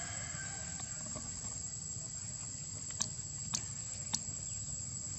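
Steady high-pitched drone of insects, with three sharp clicks about half a second apart, around three to four seconds in.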